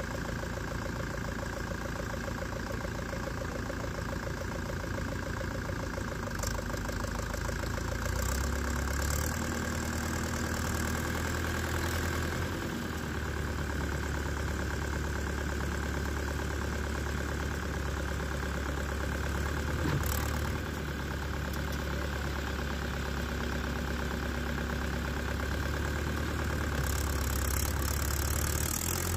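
Diesel engines of a Mahindra 675 DI tractor and a JCB backhoe running steadily while the backhoe works to free the stuck tractor from deep mud. A deeper low rumble comes in about eight seconds in and holds until near the end.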